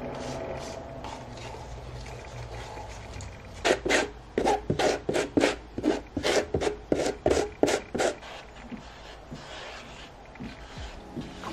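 Ceramic glaze slurry being pushed through a mesh sieve with a rubber rib: a run of quick scraping strokes, about four a second, lasting some four seconds in the middle, with quieter handling sounds before and after.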